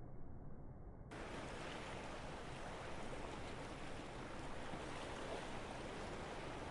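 Mediterranean Sea water washing steadily against the shore of a bay, a continuous rushing noise that sounds muffled for the first second and then opens up.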